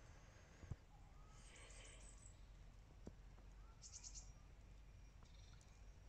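Near silence with faint high-pitched bird calls twice, about two seconds apart, and one soft click under a second in.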